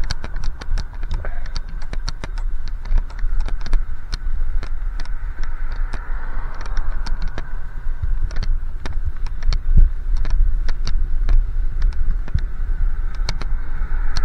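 Wind buffeting the microphone of a moving bicycle: a heavy, fluctuating rumble with steady road hiss and frequent irregular clicks and rattles.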